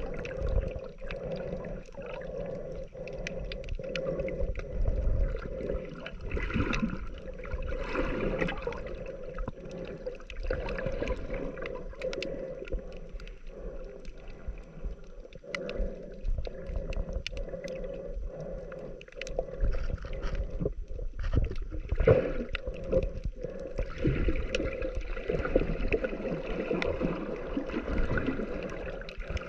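Muffled underwater sound picked up by a camera held below the surface in shallow water: water sloshing and gurgling that swells and fades, with scattered sharp clicks.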